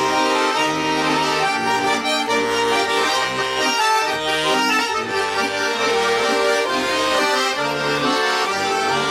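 Accordion playing an instrumental interlude of a Russian folk-style lyrical song, melody and chords over changing bass notes.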